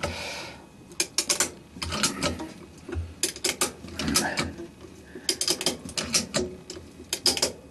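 Ratchet strap buckle being cranked tight under heavy tension, its pawl clicking in short runs of a few quick clicks, about seven runs in all.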